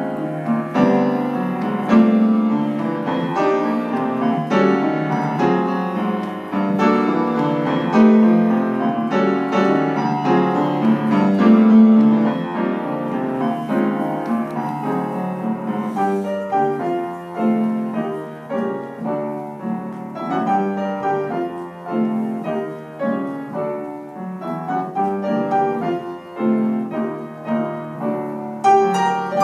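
Solo upright piano playing: full, dense chords for the first half, then sparser, more separate notes from about halfway on.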